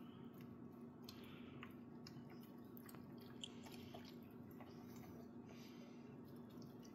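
Husky eating pieces of sirloin steak from a bowl: faint, irregular wet chewing with small clicks of teeth.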